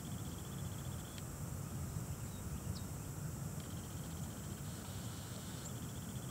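Outdoor background: a steady low rumble under a high, rapidly pulsing trill that starts and stops a few times.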